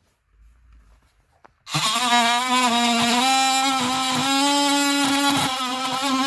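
Oscillating multi-tool switched on about two seconds in and running with a loud, steady high buzz, its pitch shifting a little as it cuts into the plastic dash trim.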